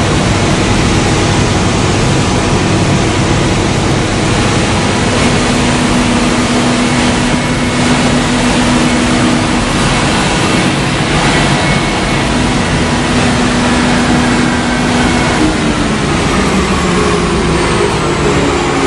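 Weber KLE 2000 wide belt sander running with a loud, steady machine noise as a board is fed in on its conveyor. A faint whine falls in pitch near the end.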